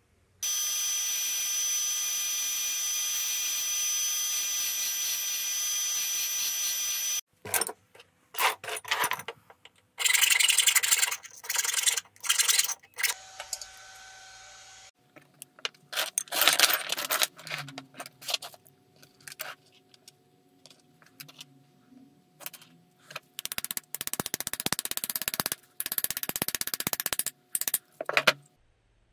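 Workshop tool noise. A power tool runs with a steady high-pitched whine for about seven seconds and cuts off. Short bursts of tool noise and clicks follow, then a stretch of dense rapid rattling near the end.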